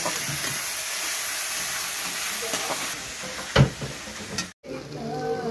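Onion-tomato masala sizzling in hot oil in an aluminium kadai while a steel spatula stirs and scrapes it, with a single sharp knock about three and a half seconds in. The sound cuts out briefly near the end.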